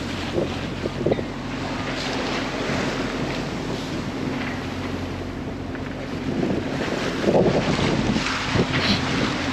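A sailing yacht under way in rough seas: wind buffeting the microphone and water rushing past the hull, over a steady low machine hum. A few louder thuds and splashes come through, the biggest a little after seven seconds in.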